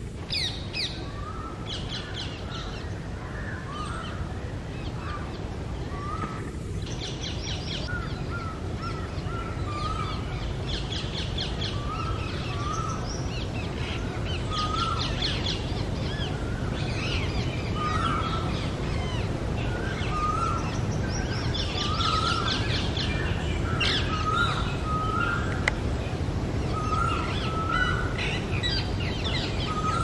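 Rose-ringed parakeet chick begging while its father feeds it at the nest hole: a run of short rising chirps, roughly one a second, mixed with bursts of raspy rapid chatter, growing a little louder as it goes.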